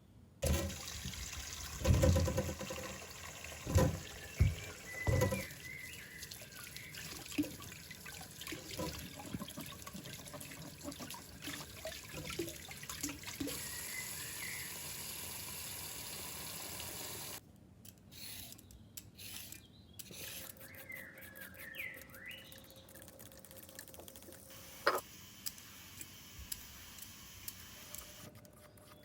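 Tap water running into a sink, with a few knocks near the start, stopping suddenly after about seventeen seconds. Afterwards faint chirps and a single sharp click are heard.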